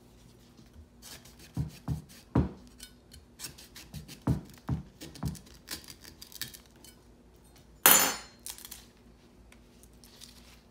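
Chef's knife chopping through a lemongrass stalk over a lava-stone mortar, a run of sharp knocks about two a second. About eight seconds in comes one loud clatter as the knife is put down.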